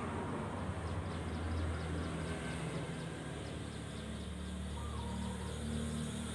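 A steady low engine-like hum, with faint quick high ticks over the first few seconds.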